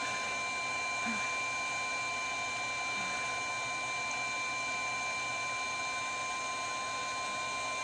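Steady background hiss with a constant high-pitched whine at a few fixed pitches, unchanging throughout, and a couple of faint small knocks.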